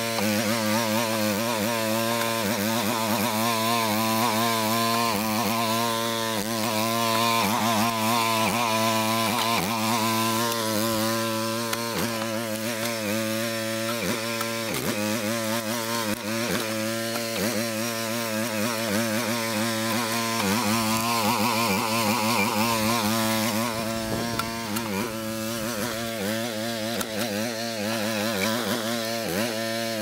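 Small single-cylinder 6.5 hp Briggs & Stratton gas engine running the hydraulic pump of a homemade mini excavator, its pitch wavering up and down throughout as the machine drives and works its hydraulics.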